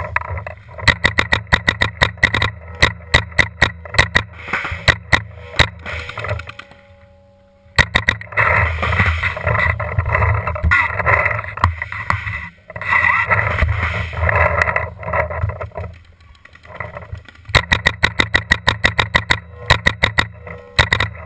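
Paintball markers firing rapid strings of shots, about five a second, with pauses between strings and a last long string near the end.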